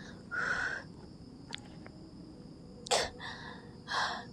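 A woman's heavy, audible breaths: three short breathy gasps spaced a second or more apart, as she recovers from a fright.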